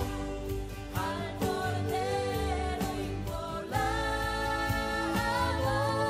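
Christian worship song in Spanish: singing over a band, with a steady beat and sustained bass underneath.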